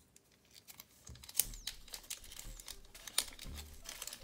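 Small clear plastic zip bag of copper standoffs being pulled open and handled, crinkling in the fingers, with a couple of louder crackles and a few soft thumps.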